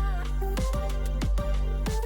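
Background music with a steady beat, held melody notes and a low bass.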